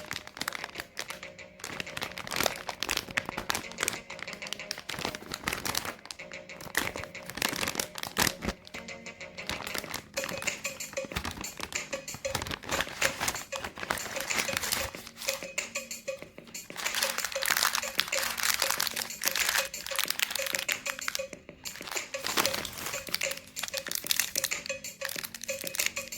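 Candy and chocolate bar wrappers crinkling and crackling as they are opened by hand, over background music.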